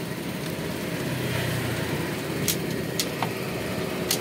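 Honda Supra X 125's single-cylinder four-stroke engine running steadily, with several sharp tok-tok knocks in the second half as gears are engaged. The mechanic puts the knocking down to nothing more than a badly adjusted clutch.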